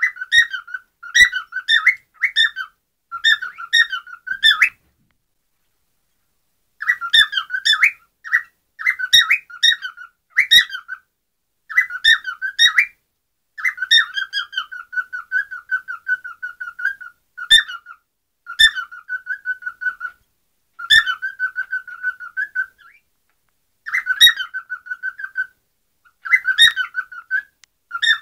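Caged pet parrots chattering and whistling in short phrases of quick repeated notes, with a pause of about two seconds near a fifth of the way in.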